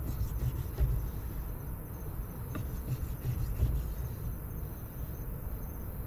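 Crickets chirping in a steady high-pitched night chorus, with a few soft knocks from a knife slicing steak on a wooden cutting board.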